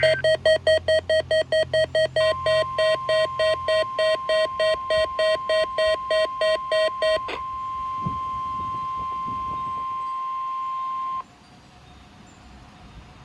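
A weather radio receiver's alert beeping rapidly, about three beeps a second, for about seven seconds, over NOAA Weather Radio's steady 1050 Hz warning alarm tone. The tone comes in about two seconds in, sounds on its own once the beeping stops, and cuts off suddenly about eleven seconds in. It is the warning alarm being sounded for the weekly test.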